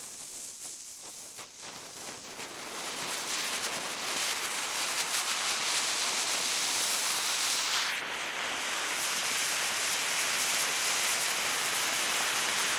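Firework burning with a dense hiss and fine crackle. It starts suddenly, grows louder over the first few seconds, then holds steady.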